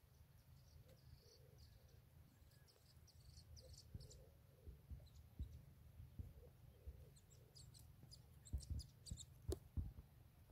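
Near silence with faint, short, high-pitched bird chirps in two scattered runs, one near the start and one in the second half, over soft low thumps.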